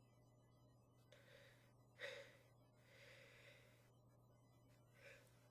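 Faint, breathy inhalations with a short gasp-like catch about two seconds in: a person's breath hitching in the build-up to a sneeze.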